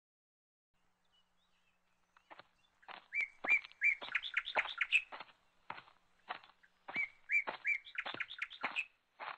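A bird chirping: quick runs of short calls that begin about two seconds in. The same phrase of chirps comes twice, about four seconds apart.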